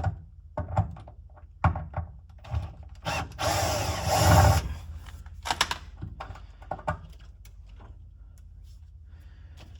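Workshop tool sounds: a string of sharp knocks and clunks, and about three seconds in a power tool whirring for about a second and a half, loudest near its end.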